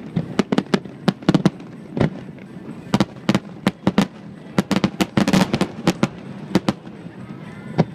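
Fireworks bursting in quick, irregular succession: many sharp bangs, with a dense cluster of crackling about five seconds in.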